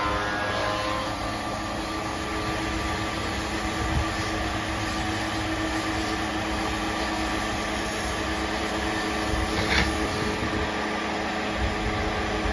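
Electric motor driving a belt-driven buffing wheel, running with a steady hum while a wooden spatula is pressed against the spinning buff to polish it. There are a couple of brief knocks, one about four seconds in and one near ten seconds.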